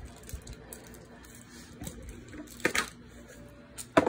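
Light scattered clicks and taps, with two sharper knocks, one a bit past halfway and one near the end.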